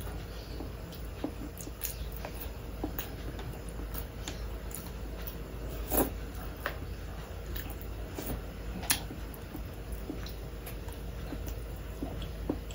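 Eating sounds close to the microphone: chewing and wet mouth smacking, with scattered small clicks, the sharpest about six seconds in and again about nine seconds in, over a low steady hum.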